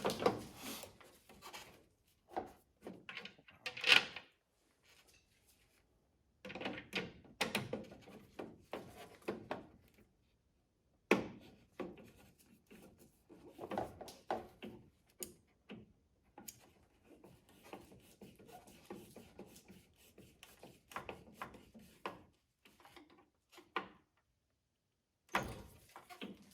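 A plastic turn signal housing being handled and fitted into place on a pickup: irregular rubbing, knocks and clicks, with a sharp click about four seconds in and a couple of short pauses.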